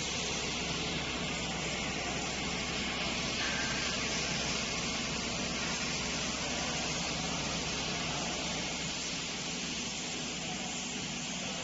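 Aluminum melting furnace running: a steady hiss with a low hum beneath it.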